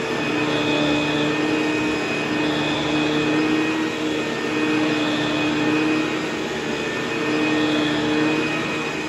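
ProTeam commercial upright vacuum cleaner running on carpet: a steady motor whine whose tone swells and eases every couple of seconds as it is pushed back and forth.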